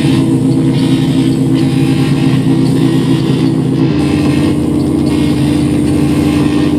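Loud electronic drone played live on a synthesizer: a dense wall of low held tones with hiss above them. About four seconds in the texture shifts and a single steadier held note comes to the front.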